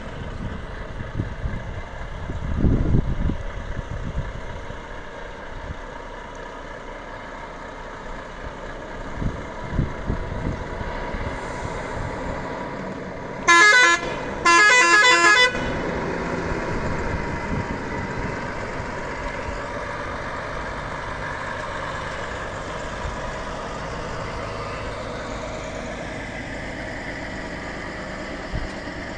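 A heavy lorry hauling an oversize load moves slowly past with its diesel engine running, and about halfway through sounds its horn twice: a short toot, then a longer blast.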